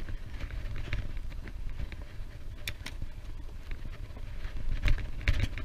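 Wind buffeting the microphone of a camera on a moving bicycle, heard as a steady low rumble. A few sharp clicks and knocks come through it, a pair about halfway and another pair near the end.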